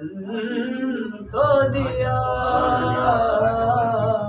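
A man's unaccompanied chanting voice reciting a devotional salam: a short phrase, then a long held note with a slight waver starting about a second in.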